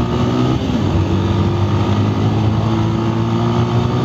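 Motorcycle engine running steadily while riding, heard from the rider's seat over wind and road noise. The engine note dips briefly about half a second in, then holds steady.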